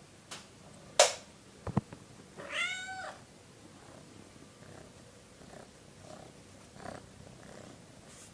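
A sharp click about a second in and two quick knocks, then a house cat gives one meow about two-thirds of a second long, its pitch rising then falling: a cat begging to be let outside.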